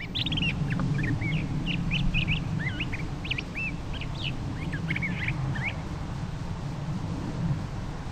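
Several birds calling in quick, squeaky, chirping notes that stop about six seconds in, over a steady low rumble.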